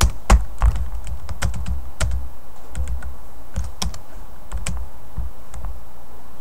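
Typing on a computer keyboard: irregular keystrokes, loudest and busiest in the first second, then spaced out.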